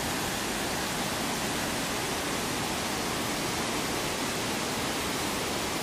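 Waterfall cascading down a rocky gorge: a steady, even rush of falling water.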